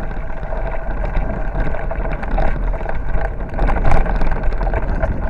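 Wind buffeting the microphone of a bicycle-mounted or handheld camera, with the rattle and knocks of a bicycle riding over a rough dirt and gravel track.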